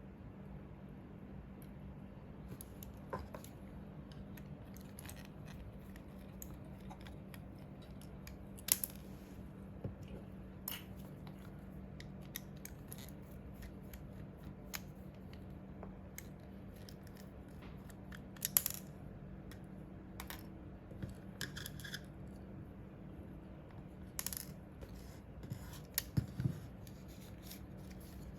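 Scattered small clicks and taps of hard plastic and metal parts being handled, a few louder knocks among them, over a steady low hum.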